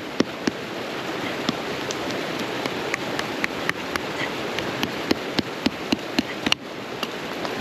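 Freshly lit wood campfire catching: a steady hiss with sharp, irregular crackles and pops, several a second.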